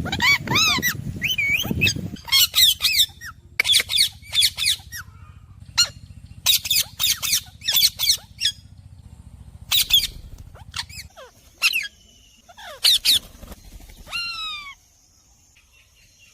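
Parrots squawking: a string of short, harsh calls that glide up and down in pitch, coming in quick clusters with brief pauses between.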